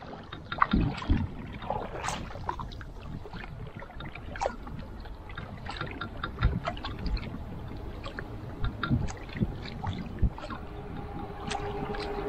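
Double-bladed paddle strokes in calm river water beside a canoe: irregular splashes and drips from the blades over a steady wash of water. A steady hum comes in near the end.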